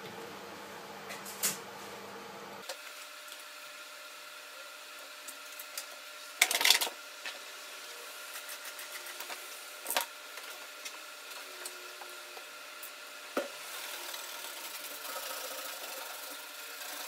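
Small screwdriver work on a MacBook Pro's keyboard screws: scattered light clicks and ticks of the driver and tiny screws, with a brief louder clatter about a third of the way in, over a faint steady hum.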